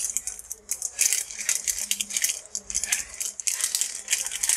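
Clear plastic zip bag crinkling and rustling in quick, irregular bursts as hands open it and handle the tool and adapters inside.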